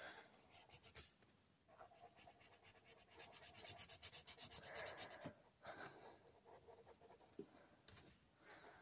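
Faint felt-tip marker rubbing back and forth on paper as it colours in, with a fast, even run of short strokes in the middle.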